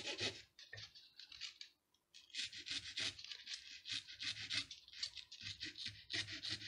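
Small junior hacksaw cutting through a balsa wood dowel in quick back-and-forth rasping strokes, about five a second. The strokes thin out and briefly stop about two seconds in, then pick up again.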